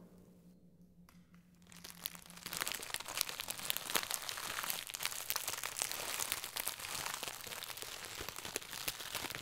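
A bag of chips being crushed under a hand: after a near-silent pause, a dense crackle of crinkling packet and crunching chips starts about two seconds in and keeps on.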